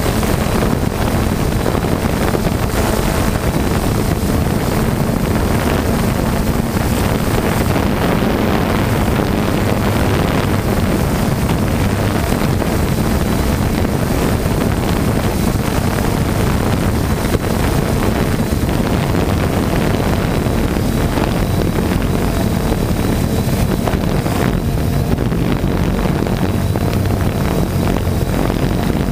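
3DR Solo quadcopter's electric motors and propellers running in flight, a steady loud hum heard from the onboard camera, with wind rushing over the microphone.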